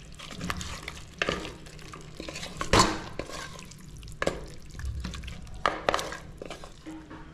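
Wooden spatula stirring chicken pieces in masala inside an aluminium pressure cooker, scraping and knocking against the pot in irregular strokes; the loudest knock comes about three seconds in.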